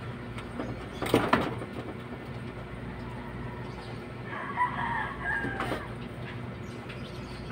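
A rooster crowing once, a drawn-out wavering call lasting about a second and a half, starting a little past the middle. A brief loud sound comes about a second in.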